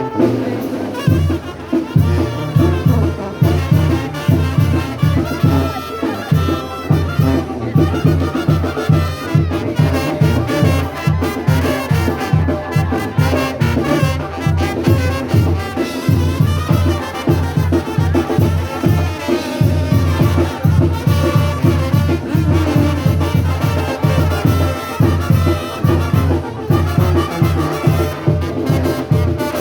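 Brass band music with trumpets and trombones over a steady, driving bass beat.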